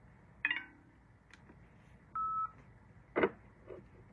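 Electronic beeping: a short two-tone blip about half a second in, then a single steady beep about two seconds in, followed by two sharp clicks near the end.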